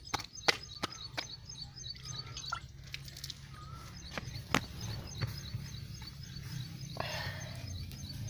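Roti dough slapped between the palms, a few sharp pats at about two to three a second that stop about a second in. Small birds then chirp over a low steady hum, with a short rustling sound about seven seconds in.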